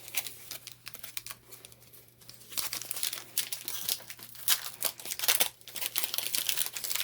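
Foil booster pack wrapper crinkling and tearing open, a run of sharp crackles that thins out briefly about two seconds in and then picks up again.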